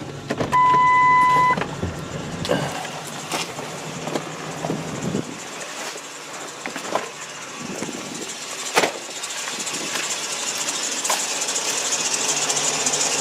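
A single steady electronic beep about a second long, then a low hum cuts out and a few sharp clicks and knocks follow, with a high hiss slowly building toward the end.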